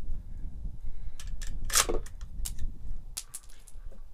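Sharp metallic clicks and knocks from an AR-15 being handled while a Tula steel-case round that failed to fire and failed to eject is cleared, the loudest about two seconds in, over low wind rumble on the microphone.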